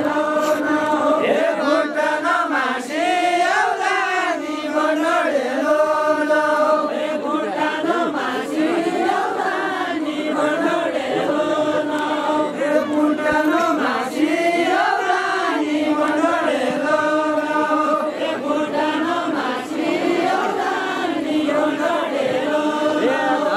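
A group of voices singing a Deuda folk song together in long, held, repeating phrases, with no instruments.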